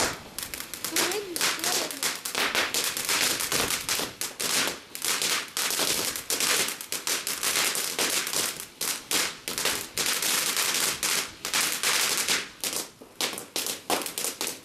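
Ground firework fountain spraying sparks, with a dense, continuous run of rapid crackling pops.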